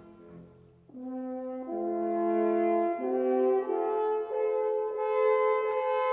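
A pair of valveless natural horns, with oboes, playing a passage of held chords that change note about once a second. They come in about a second in, after the strings have faded to a brief hush.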